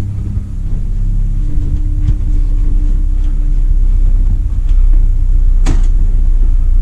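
Alienware Aurora R6 desktop PC powering on, its fans running up to a loud steady hum with a steady tone that fades about four and a half seconds in; a single click near the end.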